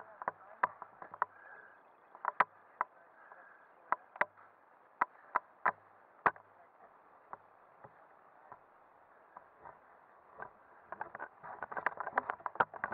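Scattered sharp clicks and snaps of dry grass and twigs underfoot, crowding together near the end, over a faint steady hiss. No motorbike engine is running.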